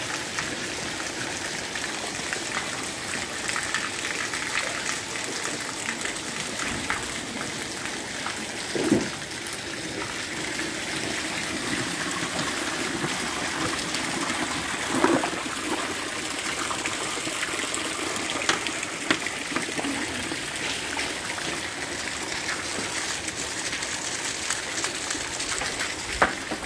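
Rainwater running and pouring as a steady rush: runoff splashing from roof spouts onto a wet concrete alley and flowing along the ground. Two brief louder sounds come about nine and fifteen seconds in.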